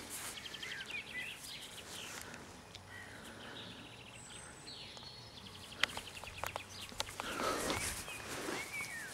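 Quiet outdoor ambience: birds chirping and trilling in the background. A few sharp clicks and a brief rustle come about three-quarters of the way through.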